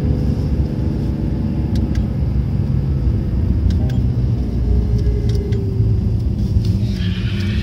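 Car engine and tyre rumble heard from inside the cabin of a moving car, steady and low, with the engine note falling slowly through the second half as the car slows.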